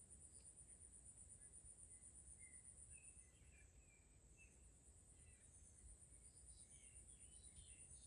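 Faint natural ambience: a steady, finely pulsing high insect trill, with soft high bird chirps scattered through and growing busier near the end.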